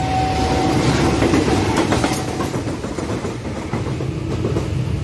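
KAI CC201 diesel-electric locomotive passing close by, its wheels clacking over the rail joints over a steady rumble. The crossing's steady warning tone fades out about a second in.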